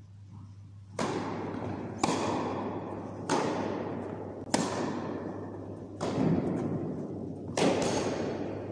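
Tennis ball struck by racquets in a rally: six sharp hits about a second or so apart, each echoing in a large indoor hall. A steady low hum runs underneath.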